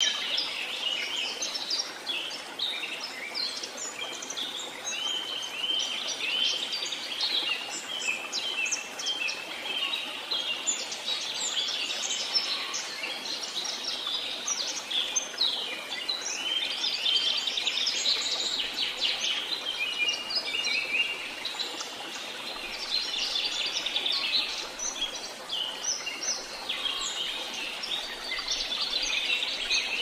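A dense chorus of many small birds chirping and trilling, with calls overlapping continuously, over a steady wash of flowing water.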